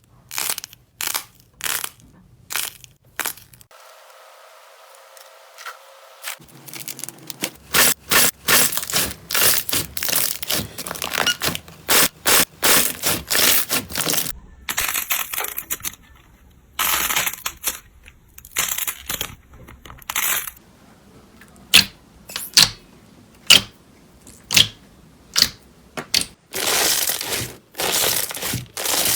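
Slime being pressed, squeezed and poked by hand, giving runs of sharp crackles, pops and clicks. The runs come in separate stretches with a quieter pause a few seconds in.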